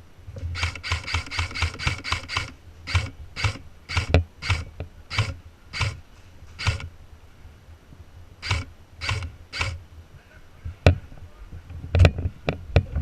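Airsoft gun firing sharp clicking shots: a quick burst of about ten near the start, then single shots roughly every half second, with pauses between.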